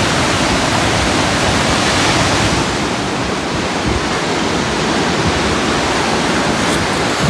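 Ocean surf breaking and washing up a sandy beach and around rocks: a steady, unbroken rush of water.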